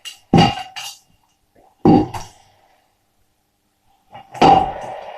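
A series of sharp knocks and thuds with a slight ringing: several in the first two seconds, then a denser clatter near the end.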